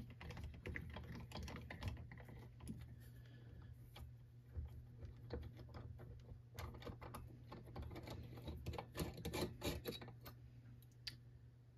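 Faint, irregular light clicks and ticks as a Torx screwdriver is spun by the fingertips, backing the loosened screw out of a string trimmer's clutch drum.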